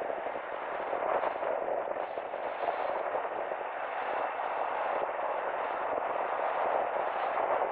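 Steady rush of road and wind noise from a moving car, with no distinct single events.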